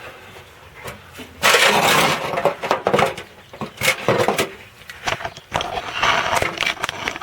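Hand tools working on a jammed fuel line connector at the fuel filter: irregular scraping, clanking and sharp cracks, starting loudly about a second and a half in and going on in bursts.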